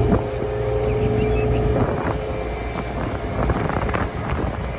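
Diesel engine of a single-drum road roller running steadily as the machine drives, with a steady tone in its hum that fades about two seconds in.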